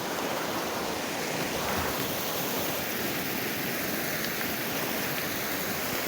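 Small Black Forest stream running, a steady rushing of water.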